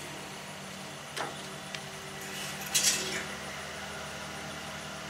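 Light clinks of a metal utensil against a flat-top griddle and a foil pan as crispy bacon is lifted off and set down: a sharp click about a second in and a louder clatter near three seconds, over a steady low hum.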